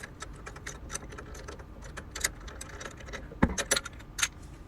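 Hand tools and loose hardware clicking and clinking as the brake-pedal brackets are unbolted from a hospital bed's brake bar. There is a run of small rapid clicks, a sharp knock about three and a half seconds in, and two more knocks soon after.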